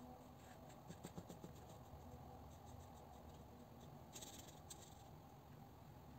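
Near silence with faint sounds of a watercolour brush on paper: a few soft taps about a second in and two brief brushing swishes a little after four seconds.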